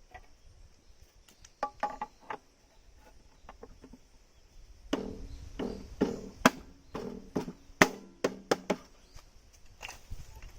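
A run of knocks and clatters, a few about a second and a half in and then a denser string of about a dozen from about five seconds in, some with a short low ring, over a steady high insect drone.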